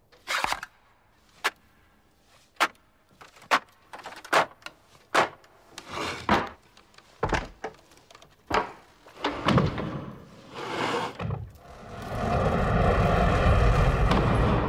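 A run of sharp knocks and thuds, roughly one a second, then a loud rushing noise that swells over the last few seconds.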